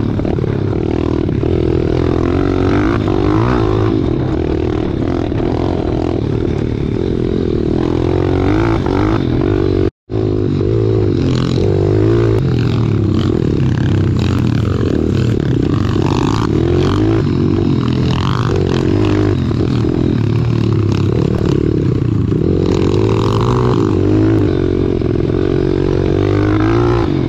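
Pit bike engine running close up, its pitch rising and falling as the throttle is worked along the trail. The sound cuts out for an instant about ten seconds in.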